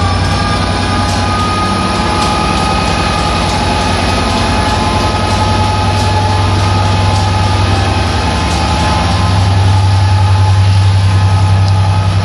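Class 67 diesel locomotive, a two-stroke V12, running at the platform. It makes a steady low drone with a few steady high whining tones above it, growing a little louder about two-thirds of the way through.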